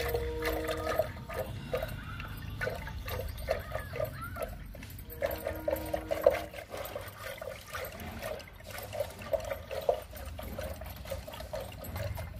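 Liquid sloshing and splashing in quick, uneven strokes, as curd is churned with water into buttermilk.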